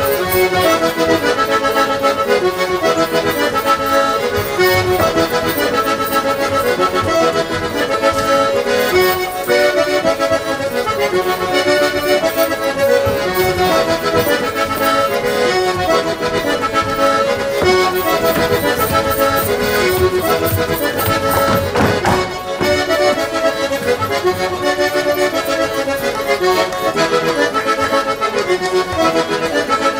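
Traditional folk tune played on an accordion, running on without a break.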